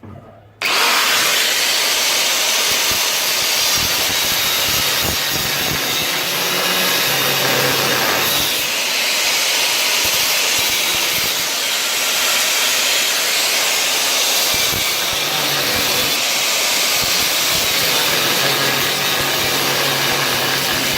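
Power tool cutting into rusty steel bodywork of a car floor area, starting suddenly about half a second in and running steadily and loudly.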